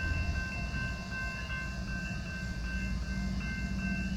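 Distant GE ES44AC diesel locomotives leading an approaching freight train: a steady low engine rumble, with a few thin steady high tones above it.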